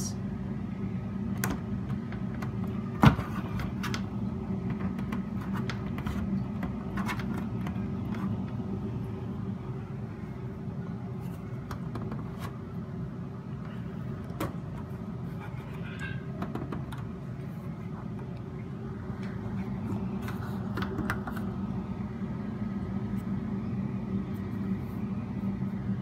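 Plastic dirt canister of a central vacuum unit being twisted clockwise and latched by hand: scattered light clicks and knocks, with one sharp click about three seconds in, over a steady low hum.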